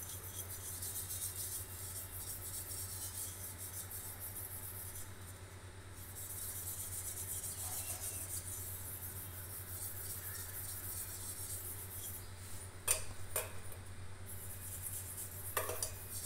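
Scrub pad rubbing on a small copper lota (water pot) to scour off tarnish: rapid, scratchy scrubbing strokes, pausing briefly twice, with a couple of sharp knocks in the second half.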